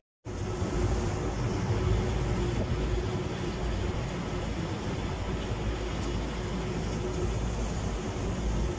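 A boat's engine running steadily under way, with the rush of water from the hull and wake and wind on the microphone. The sound cuts in after a brief moment of silence at the very start.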